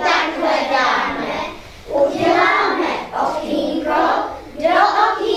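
Children's voices singing, in phrases about a second long with short breaks.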